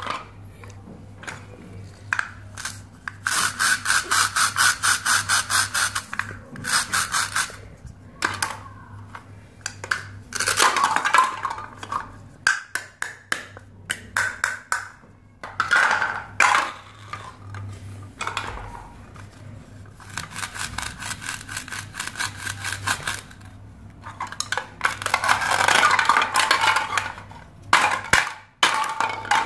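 Velcro-joined halves of plastic toy fruit being pulled apart and pressed back together, giving long rasping rips made of many rapid strokes, with plastic pieces clicking and clattering in between.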